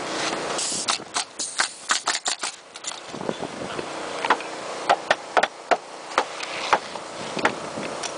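Pneumatic roofing nail guns firing nails into asphalt shingles: a fast run of sharp shots in the first few seconds, then single shots every half second to a second.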